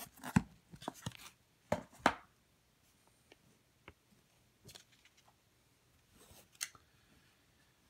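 Handling noise of wooden and cardboard cigar boxes: a few sharp knocks and clicks in the first two seconds as boxes are moved and set down, then scattered light taps and scrapes.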